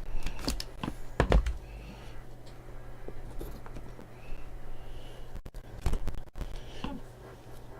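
Clicks, knocks and rustles of a trading-card box being handled and opened, with a cluster of sharp clicks in the first second and a half and two more knocks near the end.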